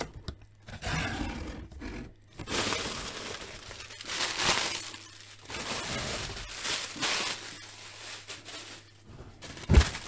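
Inflatable plastic air-pillow packing (Fill-Air Extreme) crinkling and rustling as it is handled and pulled out of a cardboard shipping box, in irregular bursts. One sharp knock near the end.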